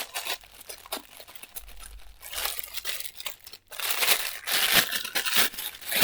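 Plastic toy packaging crinkling and tearing as it is pulled open, in irregular rustles that grow denser and louder past the middle.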